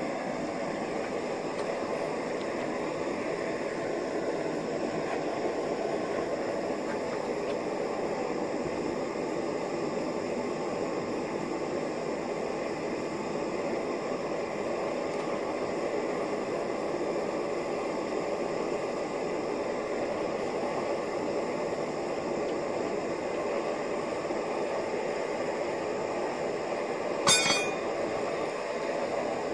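Gas torch burning steadily into a small firebrick forge, an even rushing hiss that heats steel for the quench in heat treating. Near the end comes one short metallic clink with a brief ring.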